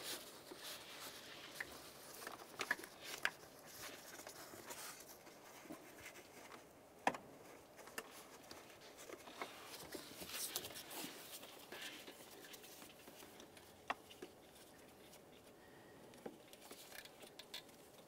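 Faint handling noise of gloved hands working along the upstream O2 sensor's wiring harness: soft rustling with a few light clicks and taps, the sharpest about seven seconds in.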